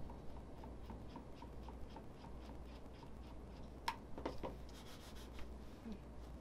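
Spatula stirring soap batter by hand in a plastic mixing cup: faint, rhythmic scraping and ticking, about three or four strokes a second, with a couple of sharper clicks about two-thirds of the way in.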